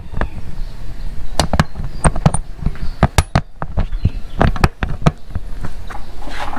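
Irregular clicks and knocks of metal and hard plastic as a motorcycle seat's hinge bracket is fitted back onto its mount and bolted.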